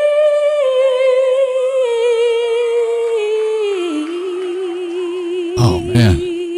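A young woman's a cappella voice holds one long sung note. It steps down in pitch and settles with a wavering vibrato. Near the end come two short thumps.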